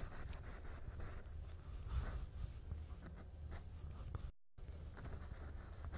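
Faint scratchy strokes of a paintbrush working oil paint on canvas, over a low steady hum. The sound drops out completely for a moment about four seconds in.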